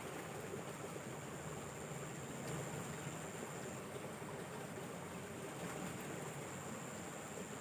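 Steady hiss of water flowing at the fishing spot, with a thin, steady high-pitched whine over it.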